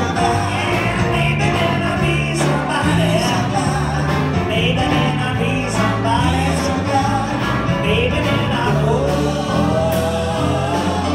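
Live band playing an upbeat blues number: electric guitar, keyboard, bass and drums, with male voices singing together.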